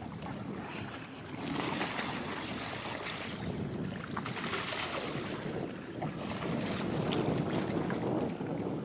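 Wind rumbling on the microphone over sloshing, splashing water as a hooked fish thrashes at the surface. The noise grows louder about a second and a half in.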